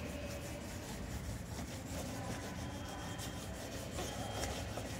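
Wax crayon rubbed back and forth across a sheet of paper: a steady, scratchy scribbling of short colouring strokes as an area is shaded in.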